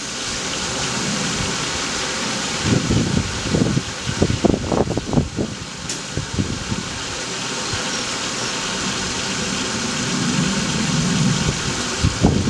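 Blue Wave 1.5 hp above-ground pool pump switched on and running with a steady whir as it pushes water through the sand filter and hoses. There are uneven low surges a few seconds in and again near the end.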